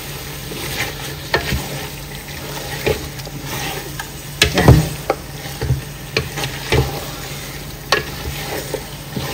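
Wooden spatula stirring chicken pieces through curry paste in a large aluminium pot, the meat frying with a steady sizzle. Irregular knocks and scrapes of the spatula against the pot, the loudest cluster about four and a half seconds in.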